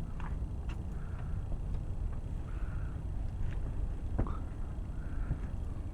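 Steady low rumble of a catamaran under way, with a few short high squeaks and clicks scattered through it.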